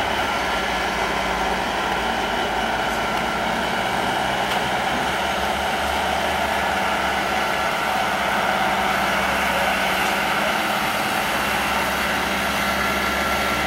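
Heavy engine running steadily, a constant mechanical drone with no pauses.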